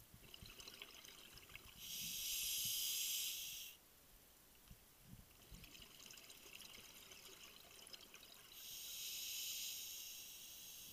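A diver's scuba regulator underwater: two long rushes of breathing air and bubbles, about two seconds in and again near the end, with softer crackling bubbles in between.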